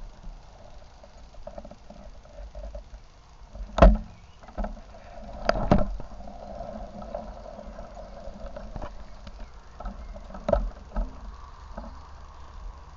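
Running stream water with several sharp knocks and handling noises close to the microphone, the loudest knock about four seconds in and a cluster of them a couple of seconds later.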